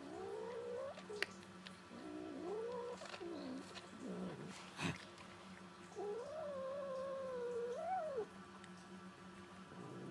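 A cat giving several low, wavering yowls, the last and longest lasting about two seconds: the angry warning of a stray cat that objects to being stroked on the head while it eats. Two sharp clicks fall in between.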